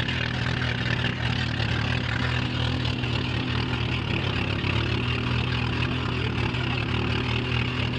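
Motorized outrigger boat (bangka) engine running steadily under way, an even low hum, with the hiss of water and wind rushing past.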